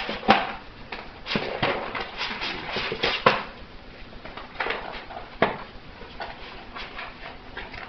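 West Highland white terrier tearing and chewing at a small cardboard box: irregular rips, crackles and rustles of cardboard, with the sharpest cracks about a third of a second in and around three seconds in.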